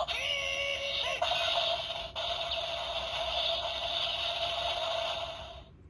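The Gozyuger DX Tega Sword toy playing electronic sound effects and music through its small built-in speaker. The sound is tinny and sustained, with a few pitch sweeps in the first second or so, and it cuts off just before the end.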